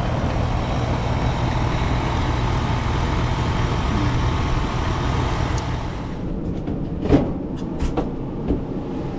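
A steady low mechanical drone that drops in level about six seconds in, followed by a few sharp clicks and knocks.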